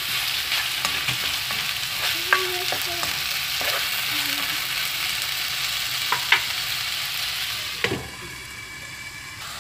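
Diced chicken and mixed vegetables sizzling in a wok while a spatula stirs them, with a few sharp knocks of the spatula against the pan. The sizzle drops away about eight seconds in.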